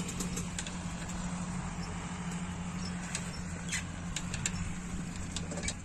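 Bicycles ridden over a rough dirt and mud track: a steady low hum and noise, with scattered light clicks and knocks through it.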